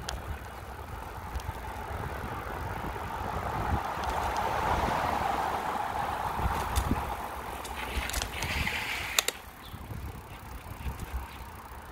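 Bicycle rolling on asphalt with wind buffeting the microphone. A hiss swells in the middle and fades, and a few sharp clicks and rattles come near the end.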